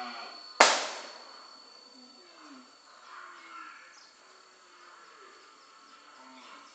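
Caged Nias hill myna (Gracula robusta) vocalising: a voice-like call with bending pitch fades out at the start, a single sharp, loud crack comes about half a second in, then faint, low, soft notes follow. A steady high insect-like whine runs underneath.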